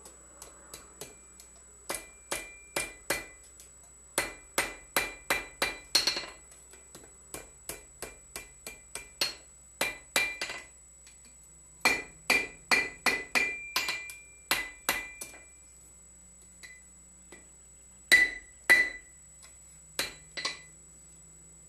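Blacksmith's hammer striking hot steel bar stock over the anvil horn in quick runs of blows with short pauses, each blow leaving a brief metallic ring: the bar is being bent into the curl of an S hook.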